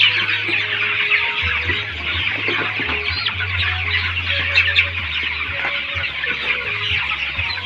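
A large flock of 20-day-old broiler chickens calling together: many overlapping high-pitched calls in a continuous, steady din.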